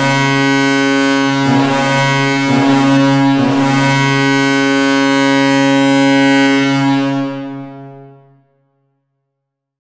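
Hockey arena goal horn blowing one long steady note, with three short noisy surges over it in the first few seconds; it fades out about seven to eight seconds in.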